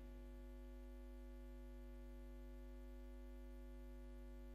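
Faint, steady electrical mains hum with no other sound.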